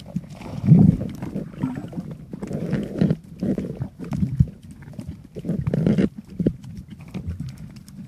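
Muffled underwater sound from a camera held below the surface: irregular low rumbling surges of moving water with scattered clicks, loudest about a second in and again near six seconds.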